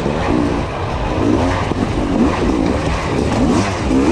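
Hard enduro motorcycle engine revving up and down again and again, its pitch rising and falling about every half second as the throttle is worked over rough ground.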